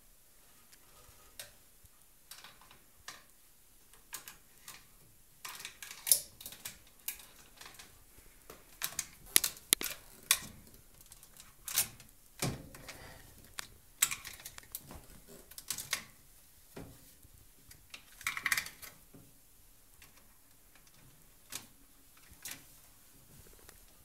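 Irregular clicks, clinks and rattles as a toddler handles an open dishwasher: its wire racks and hard plastic pieces knocking against the door and detergent dispenser, busiest in the middle and sparse near the start and end.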